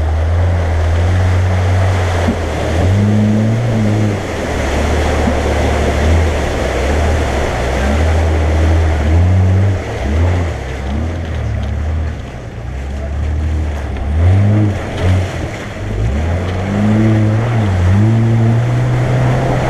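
Jeep Grand Cherokee WJ engine working off-road, its revs rising and falling again and again, and climbing and holding higher near the end, over a steady rushing noise.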